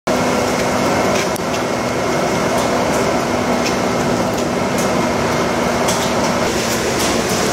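A steady mechanical hum with a constant low drone, with faint, irregular sharp clicks scattered through it.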